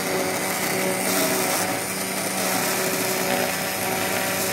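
Electric hand blender running steadily in a bowl, beating egg whites with a pinch of salt.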